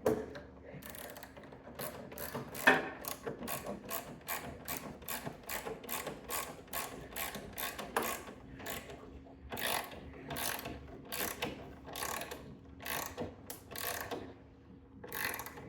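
Hand socket ratchet on an extension clicking in repeated strokes as it tightens the fairing bolts. Quick strokes at first, then slower, separate strokes from about ten seconds in, with a short pause near the end.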